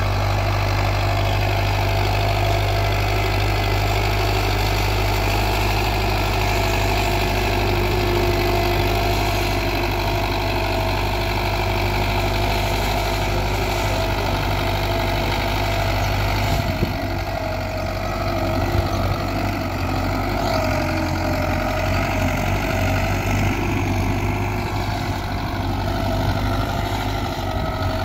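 Belarus tractor's diesel engine running steadily as it pulls a 16-disc harrow through ploughed soil. The low hum shifts about sixteen seconds in.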